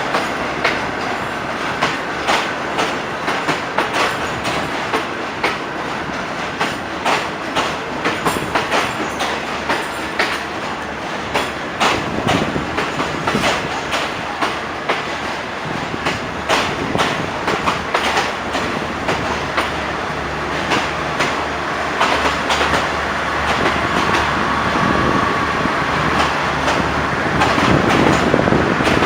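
Passenger train carriages rolling through the station, wheels clacking rapidly and unevenly over rail joints and points, growing louder near the end.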